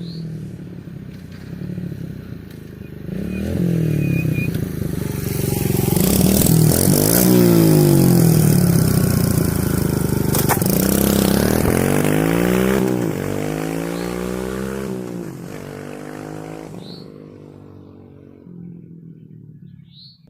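Kawasaki KLX110 pit bike's small single-cylinder four-stroke engine revving again and again, its pitch climbing and dropping with each run through the gears. It builds to its loudest in the middle and fades away toward the end.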